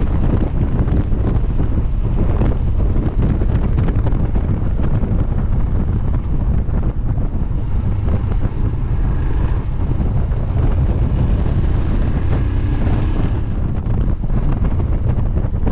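Heavy wind buffeting on the action camera's microphone over the steady running of a Royal Enfield Himalayan's 411 cc single-cylinder engine while riding.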